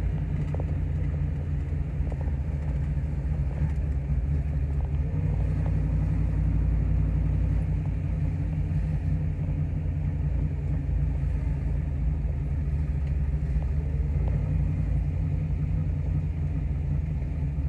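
A 1964½ Mustang's Ford 289 Hi-Po V8 running steadily, a low even engine sound with no change in revs.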